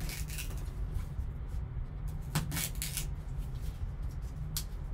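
Folding knife slitting the seal of a cardboard trading-card box, and the box being handled: short scrapes and taps in three brief clusters, over a steady low hum.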